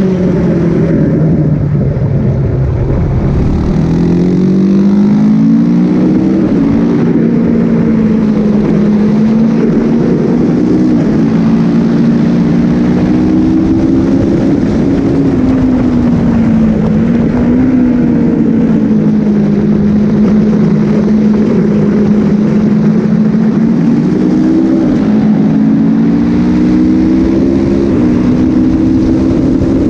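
Sport motorcycle engine heard from an onboard camera on the bike, running hard on a race track: its pitch climbs and drops back in steps as the rider accelerates through the gears, then falls away and climbs again through the corners, over a steady rush of wind noise.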